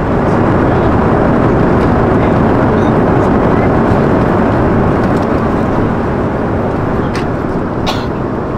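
Steady cabin noise of an Airbus A340-300 in cruise: the even rush of air and engine sound heard from a business-class seat, with a couple of faint clicks near the end.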